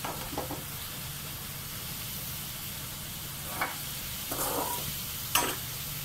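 Chopped bitter gourd sizzling as it is sautéed in a metal kadai. A few short clinks and scrapes of a slotted steel ladle against the pan come while it is stirred, the sharpest about five seconds in.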